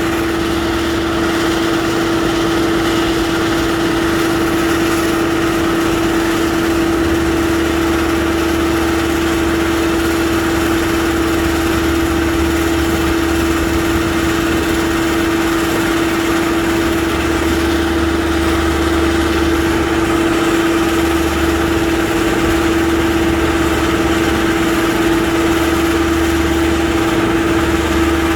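A construction machine's engine running steadily at an even speed, with a constant hum over it and a low rumble that drops away and returns several times.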